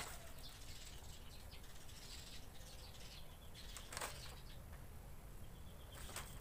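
Faint rustling of a paper instruction sheet and plastic wrapping being handled, with a louder rustle about four seconds in.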